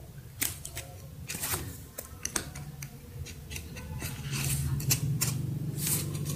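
Box-cutter blade cutting and scraping along packing tape on a cardboard box, a string of short sharp scrapes and clicks. A low steady hum comes in about four seconds in.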